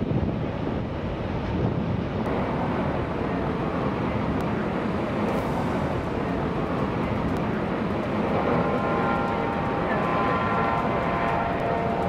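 Iguazu Falls at the Devil's Throat: a steady, loud rush of falling water.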